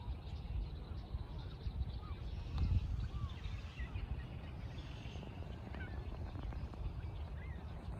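Birds chirping: many short, scattered calls with quick pitch glides, over a steady low rumble.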